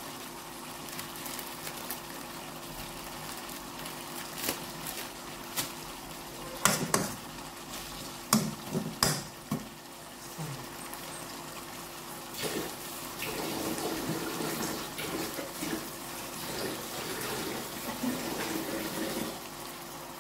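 Kitchen sounds: dishes and pans clink sharply a few times in the first half, then a steady watery sound of liquid sets in about twelve seconds in.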